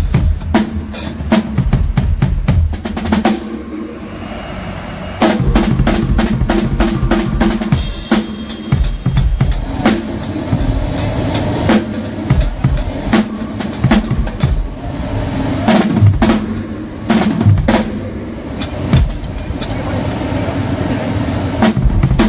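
Drum kit played during a soundcheck: kick and snare strikes in a steady rhythm with fills. It drops to a ringing lull about three and a half seconds in, then the playing picks up again about a second and a half later.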